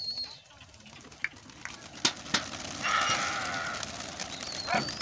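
A flock of pigeons taking off, their wings clattering, with two sharp claps a little after two seconds in. A thin rising whistle comes near the end.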